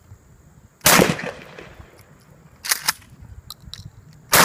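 Two blasts from a Mossberg 500 Persuader 12 gauge pump-action shotgun, one about a second in and one at the very end, each ringing out briefly. Between them come sharp clacks as the pump is slid back and forward to chamber the next shell.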